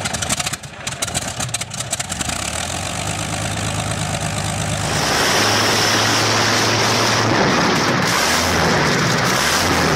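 A Rolls-Royce Merlin 27-litre V-12 aero engine on a test stand starts up: irregular popping as it catches, smoothing into a rough, steadier run. About five seconds in, the sound changes abruptly to a second Merlin running louder and steadily.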